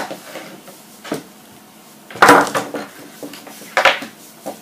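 Pliers and small parts of a scale model truck kit clicking and knocking against each other and the workbench. There are three sharp knocks, the loudest a short clatter about two seconds in.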